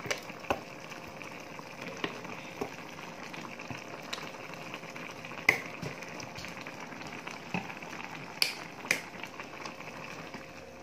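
Squid in a thin Padang chili-tomato sauce bubbling at a steady simmer in a wok, with a few sharp clicks of a metal ladle against the pan.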